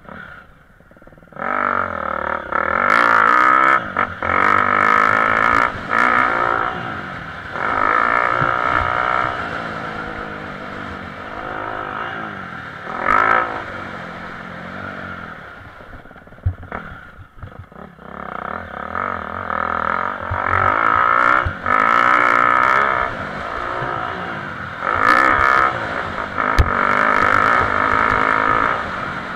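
Motocross bike engine heard from its onboard camera, revving hard through the gears in repeated bursts of throttle. The sound dips briefly when the rider shuts off, about a second in and again around halfway through.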